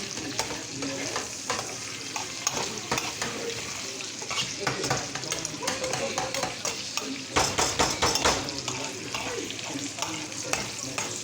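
Bacon sizzling in a frying pan as it is stirred, a steady hiss with many small clicks and scrapes of a fork against the pan; a louder flurry of clicks comes about two thirds of the way through.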